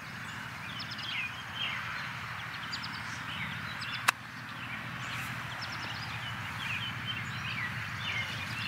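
Birds chirping over a steady low background hum, with one sharp crack about halfway through, a golf club striking the ball.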